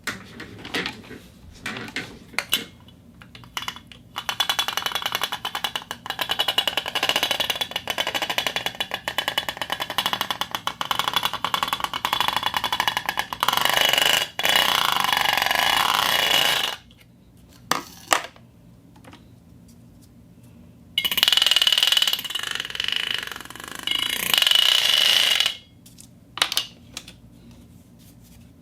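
Fishing reel being worked by hand. It starts with a few separate clicks, then the handle is cranked with fast, fine ratchet-like clicking for about nine seconds. Two spells of steadier, louder whirring with a high ringing tone follow, the second about four seconds long, with single clicks between them.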